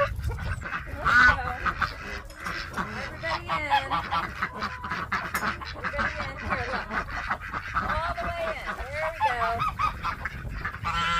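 Geese honking, a run of short calls one after another with several birds overlapping.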